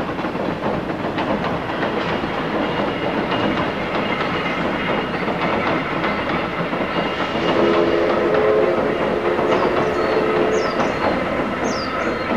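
Steam-hauled passenger train running along the line: a steady rumble with wheels clicking over rail joints. A steady low tone holds for a few seconds past the middle, and a small bird gives several short falling chirps near the end.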